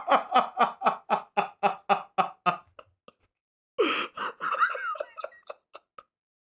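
A person laughing hard in a rapid run of ha-ha pulses, about four a second, pausing briefly about three seconds in, then laughing again for about two seconds.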